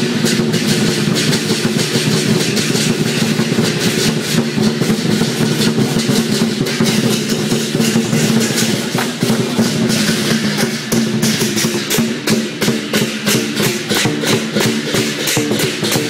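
Lion dance percussion: a large drum, clashing cymbals and a gong playing a fast, continuous beat to accompany the dancing lions.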